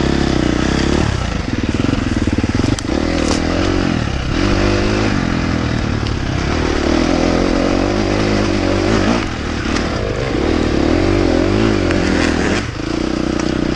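Husqvarna dirt bike engine pulling under throttle on a rough trail climb, its pitch rising and falling with brief dips about a second in, around four seconds in, past nine seconds and near the end as the throttle is eased or a gear is changed. A few sharp knocks come through over the engine.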